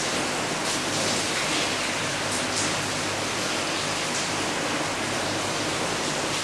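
Water spinach stems being cut and snapped against a boti blade: a few faint crisp snaps over a loud steady hiss.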